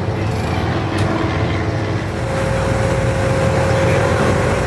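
A car's engine running with a steady low rumble, joined by a steady higher hum about two seconds in.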